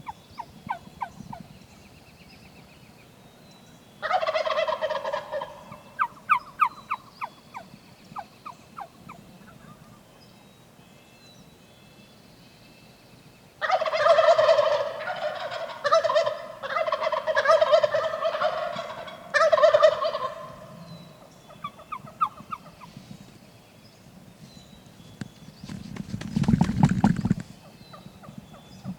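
Wild turkey gobbling, loudly and repeatedly: one gobble about four seconds in, followed by a string of short rapid notes, then a run of several gobbles about halfway through. Near the end there is a brief rustling noise burst.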